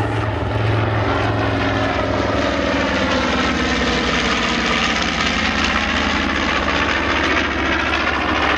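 North American B-25 Mitchell bomber flying past, its two Wright R-2600 14-cylinder radial engines running with a loud, steady drone.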